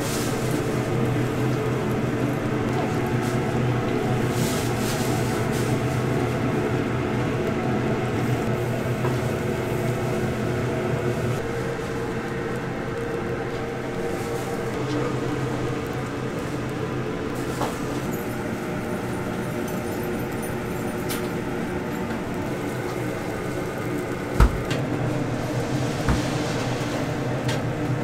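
Steady low hum of kitchen machinery, such as ventilation or burners, at a takoyaki grill, with two sharp knocks near the end.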